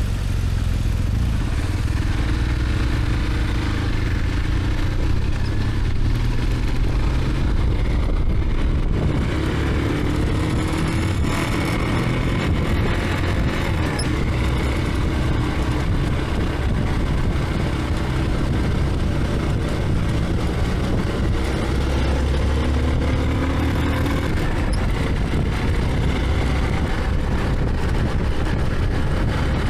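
BMW GS adventure motorcycle under way, its engine running steadily with the pitch rising and falling several times as the revs change.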